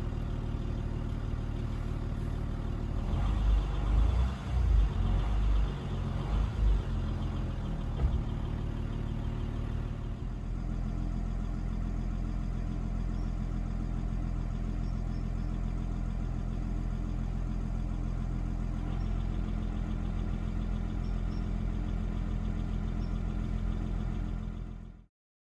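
Audi A6 C5 2.5 TDI V6 diesel idling steadily and warm, just after one injector was replaced, with a few louder low rumbles about 3 to 7 seconds in. The sound cuts off abruptly near the end.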